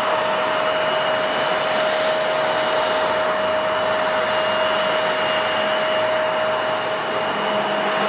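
Airliner engines running steadily: a continuous rush of air with two steady whining tones over it.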